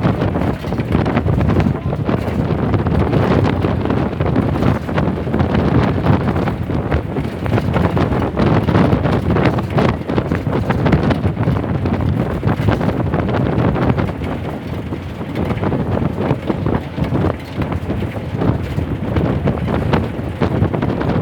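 Inside a moving Tamil Nadu government bus: loud, continuous road and wind noise buffeting the microphone over the steady drone of the engine, with constant rattling and knocking from the bus body.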